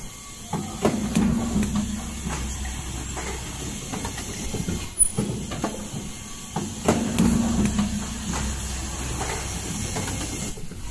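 Automatic N95 cup mask production machine running: a steady hum with repeated clicks, clunks and hisses of air as the fixtures index along the line, in a cycle of louder bursts about every six seconds.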